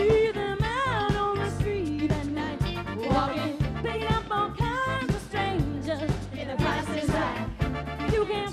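Upbeat pop song: a woman singing a melody over a band accompaniment with a steady beat.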